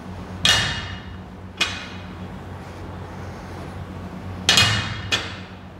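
Loaded barbell with its weight plates set down on the gym floor during deadlift reps: four knocks, each with a brief metallic clank and ring from the plates. The first two come about a second apart, the last two close together near the end.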